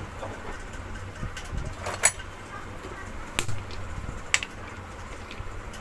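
A few sharp clicks and taps from tightening a threaded coupling onto a mixer grinder's motor shaft, over a steady low hum.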